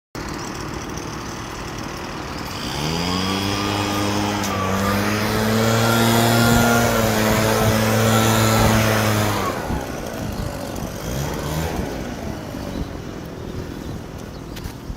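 Motorcycle engine running: its note swells in about three seconds in and holds steady and loud, then drops away after about nine and a half seconds and fades out.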